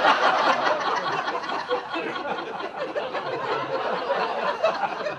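Audience laughing at a stand-up punchline, loudest at first and slowly dying down.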